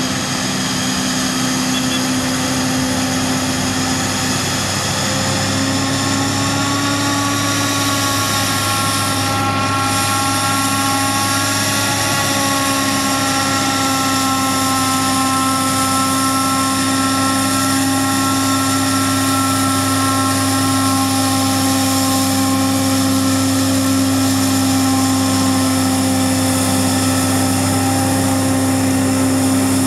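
John Deere 8800i forage harvester chopping rye: a steady heavy engine drone under load, with a steady high whine over it, growing a little louder as the machine comes closer.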